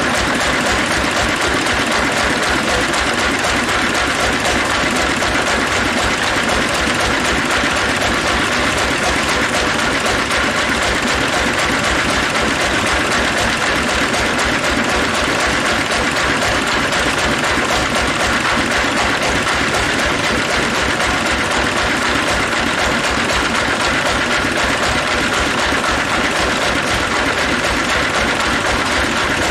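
Sawmill log bandsaw machinery running steadily without cutting, a loud even mechanical noise with a fast, regular low pulse beneath it.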